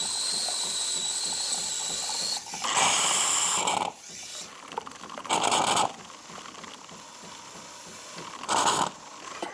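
Jura Impressa Z7 milk frother steam-foaming milk cleaner: a steady hiss with a high whistle, which stops after about two seconds, then three loud spurts as the frothing spout draws in air and liquid.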